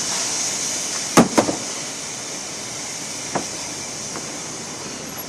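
Hammer blows on a door frame: two sharp strikes in quick succession about a second in, then a single fainter knock, over a steady background hiss.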